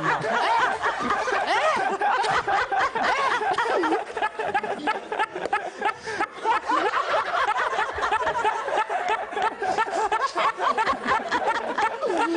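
A person laughing loudly and at length, the laugh breaking into quick, rapidly repeated "ha" pulses from about four seconds in.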